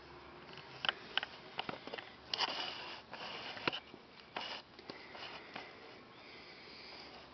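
Maine coon kittens scuffling and scampering on a fabric-covered mat: scattered clicks and short rustling bursts, busiest in the first half and quieter near the end.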